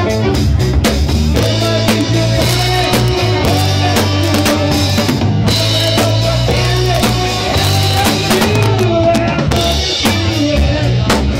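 Live soul music played loud, with a steady drum-kit beat of kick and snare over a bass line and keyboard.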